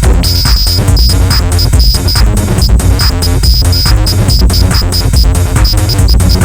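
Techno played live on hardware synthesizers, samplers and drum machines: a steady driving beat over heavy bass, with a high synth note that stutters in short rapid repeats.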